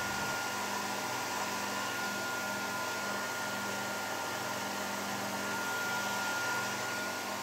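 Hand-held hair dryer running steadily, blowing through a kitchen colander used as a diffuser: an even rush of air with a thin steady whine over it.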